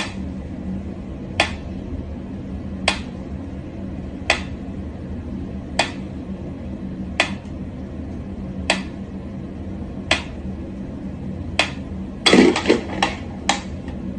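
Mechanical pyramid metronome ticking slowly and evenly, about one sharp tick every second and a half. Near the end, a short burst of knocks and rustling.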